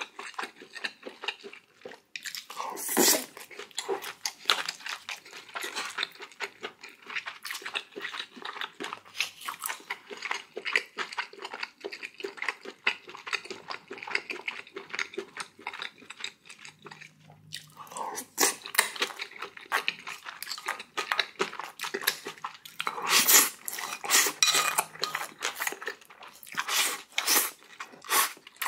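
Close-miked eating sounds: wet chewing, smacking and crunchy bites of spicy raw oyster salad with boiled pork and kimchi, coming in irregular bursts with a few louder bites.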